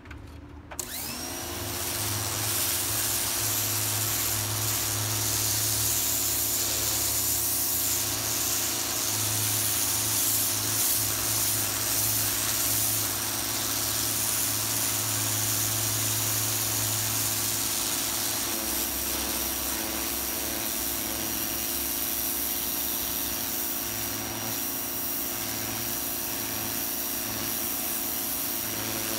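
AR Blue Clean AR383 electric pressure washer kicking on about a second in, its motor and pump whining up to speed and then running steadily, with the loud hiss of the water jet spraying from the wand.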